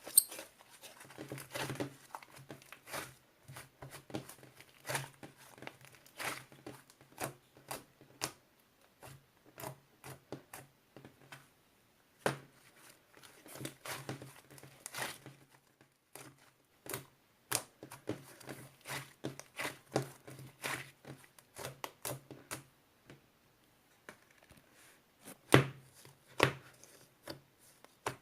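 Irregular crinkling, rustling and tapping handling noises at close range, with a few louder knocks near the end and a low hum that comes and goes.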